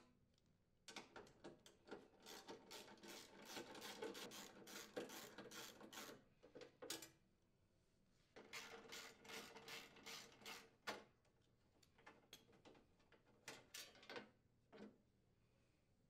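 Faint rubbing, scraping and small clicks as the snowblower's belt cover is worked loose and pulled off the housing, in two stretches with a few separate clicks near the end.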